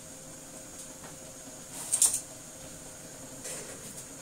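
Pan of water heating on a gas stove: a steady low hiss, broken about two seconds in by one short, sharp clink of metal tongs against the pan, with a fainter one later.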